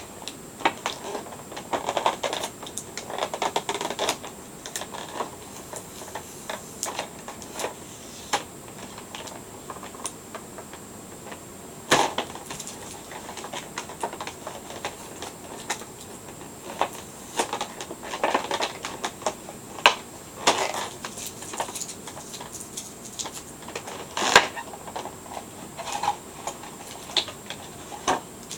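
Plastic figure packaging and tape being handled and pulled apart: irregular clicks, crinkles and rustles, with a few sharper snaps.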